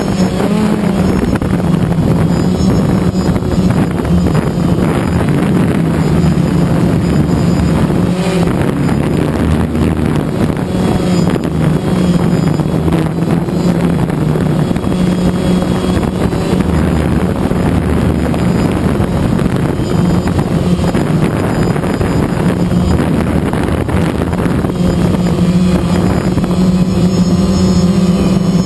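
Multirotor drone's electric motors and propellers buzzing steadily close to the camera it carries, the pitch wavering a little as the drone manoeuvres, with some wind rush on the microphone.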